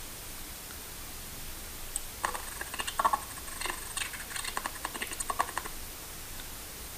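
A quick, irregular run of sharp clicks lasting about three and a half seconds, over a steady hiss with a faint high tone.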